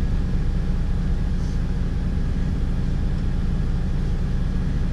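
Mercedes-Benz city bus's engine idling with a steady low rumble, heard from inside the cabin at the front, while the bus stands still.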